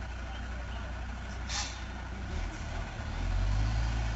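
Heavy truck's diesel engine running with a low, steady drone, a short sharp air-brake hiss about a second and a half in. The engine grows louder about three seconds in.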